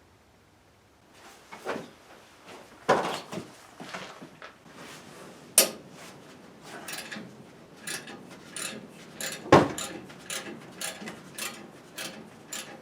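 Irregular knocking and clattering of hand tools on ATV parts during disassembly, starting about a second in, with three louder sharp strikes near three, five and a half and nine and a half seconds in.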